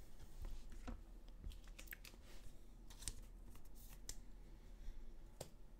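Trading cards being handled and set down on a table mat: faint, scattered light clicks and taps.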